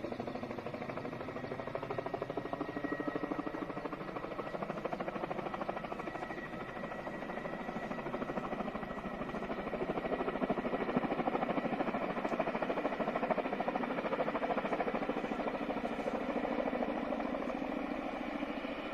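Helicopter rotor chop: a steady, rapid beating that grows louder about halfway through.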